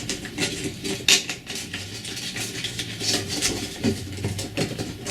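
Scattered clicks, taps and rubbing as an abrasive belt is fitted onto a Work Sharp Ken Onion blade grinder attachment, with a sharp click about a second in.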